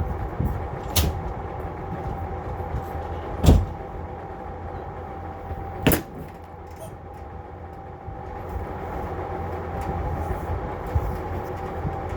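Vintage Lakewood-made box fan running, a steady motor hum with the rush of moving air. Three sharp knocks cut across it, about one, three and a half and six seconds in; the middle one is the loudest.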